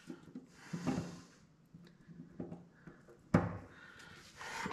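Faint metal clicks and scrapes of snap ring pliers being re-seated on the snap ring of a mower deck gearbox's blade shaft, with one sharper click about three and a half seconds in.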